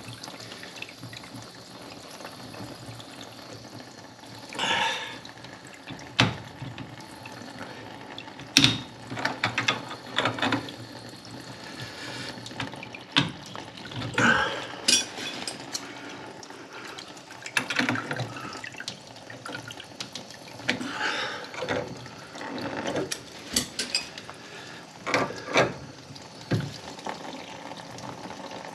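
Water running and dripping from a central heating pump's slackened union nuts into a foldable bucket, with occasional clicks and knocks from handling the pump fittings. The flow means the pump isolation valves are not fully shutting off.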